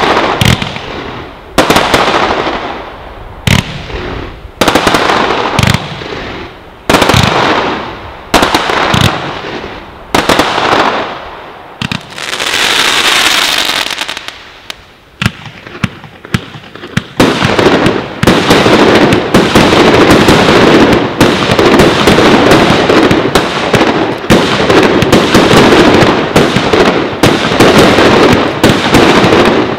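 Fireworks going off: single bangs about a second apart, each trailing off in crackle, then a swelling hiss. About halfway through, a dense, continuous barrage of rapid shots and crackling takes over from a firework battery firing in quick succession.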